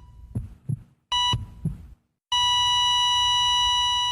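Hospital heart-monitor sound effect: two beeps about a second apart, each with a heartbeat's two low thumps, then about two seconds in a long unbroken flatline tone, the sign of the heart stopping.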